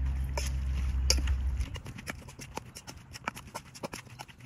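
Metal spoon clicking and scraping against a stainless steel mixing bowl as pieces of marinated pig's face are tossed, an irregular run of clicks. A low steady hum underneath stops about a second and a half in.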